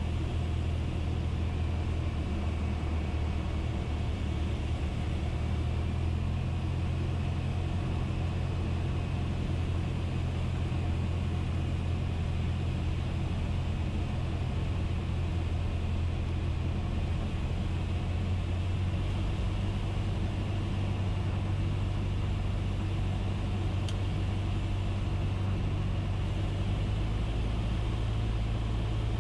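Cessna 172's four-cylinder Lycoming engine and propeller droning steadily in the cabin during a descent on final approach, the engine note shifting slightly a couple of times.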